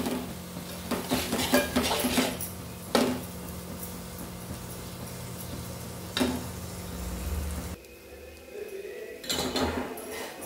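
Steel spatula scraping and knocking against a metal pot as onion-and-spice masala is stirred and fried in oil, with several sharp clinks in the first three seconds. A steady low hum runs under the middle, and more metal clinks come near the end.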